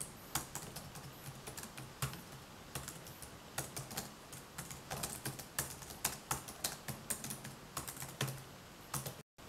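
Typing on a computer keyboard: irregular key clicks, several a second, with short pauses between runs.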